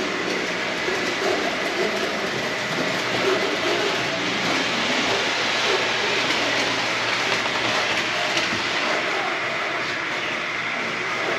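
A train running on its track: a steady rolling noise with clatter, without a break.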